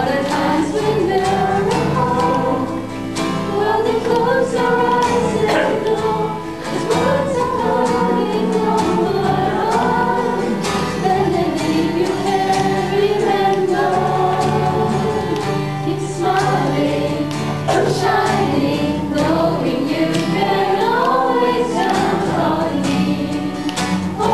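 A small group of women singing a song together, with an acoustic guitar playing chords.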